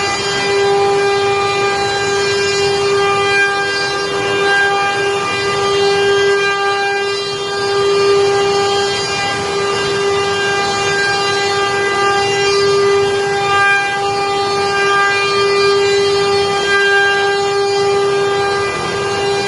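CNC woodworking machine cutting wood, its spindle giving a steady whine of constant pitch over the hiss of the cut.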